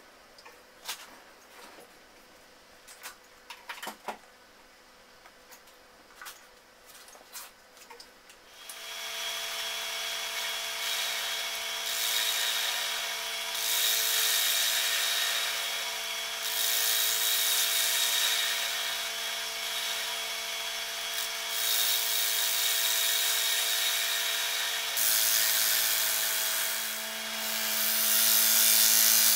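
A few light knocks and clicks as the disc is fitted to the lathe. About a third of the way in, the lathe motor starts with a steady hum, and a turning tool cuts into the face of the spinning wooden disc with a loud hiss that swells and eases with each pass.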